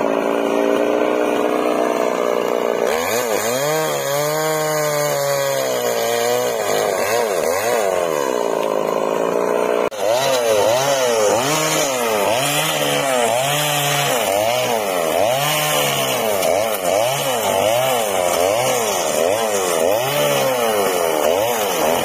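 Two-stroke petrol chainsaw running and being revved, its engine pitch climbing and falling. In the second half it is cutting through a small tree near its base, the pitch climbing and dropping about once a second.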